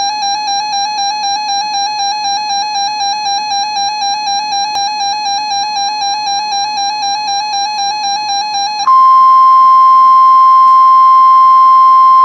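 Emergency alert tones from a weather radio. First a high electronic alarm tone warbles about two and a half times a second for roughly nine seconds. Then it cuts over abruptly to the louder, steady 1050 Hz Warning Alarm Tone that comes before a NOAA Weather Radio warning message.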